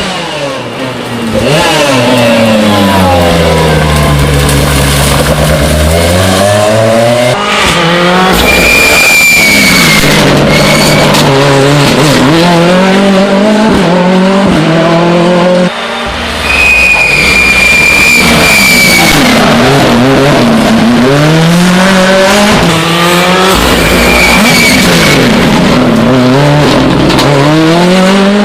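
Rally car engines revving hard and running up and down through the gears as cars pass at speed. The tyres squeal through corners three times: about a third of the way in, just past halfway, and again near the end.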